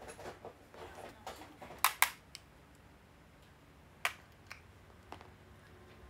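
Light rustling, then a few sharp clicks close to the microphone: a quick, loud pair about two seconds in, another near four seconds, and fainter ticks after.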